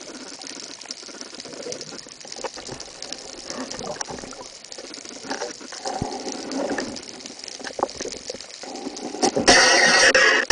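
Underwater ambience through a camera housing: a steady crackle of small clicks over water hiss. About nine seconds in, a loud rushing burst lasting about a second.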